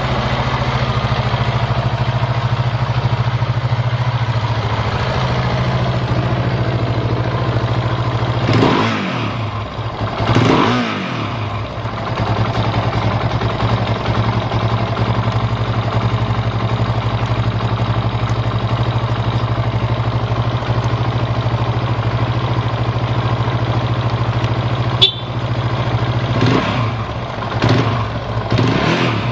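KTM 690 Supermoto R single-cylinder engine idling steadily, with no abnormal noise, blipped twice about a third of the way in and three more times near the end, each rev rising and falling quickly. A single sharp click comes just before the last blips.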